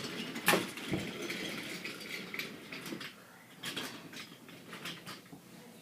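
Wooden toy trains being moved about on wooden track: a sharp clack about half a second in, then scattered lighter clicks and knocks of wooden pieces.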